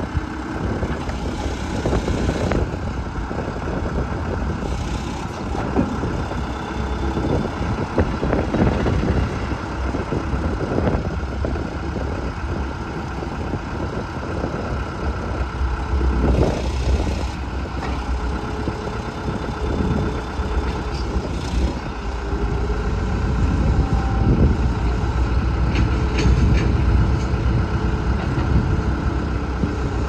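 2006 John Deere 310G backhoe loader's diesel engine running under hydraulic load as the backhoe boom, dipper and bucket are worked, with scattered knocks from the moving arm. About two-thirds of the way through the engine gets louder and deeper.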